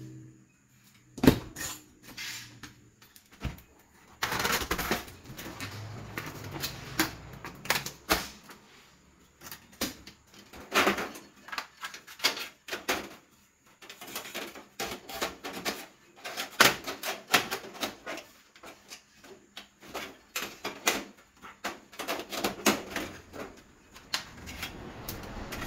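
Thin aluminium floor slats clattering and clicking as they are handled and slotted into an aluminium cabinet frame, many irregular light knocks and rattles.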